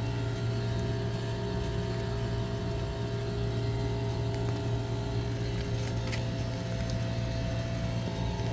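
Single-phase 3 HP refrigeration condensing unit for a cold-storage room running with a steady, even hum.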